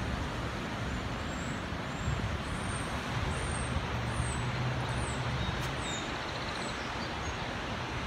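Steady rushing noise of road traffic, with a low engine hum that swells for a couple of seconds midway, and a few short high bird chirps.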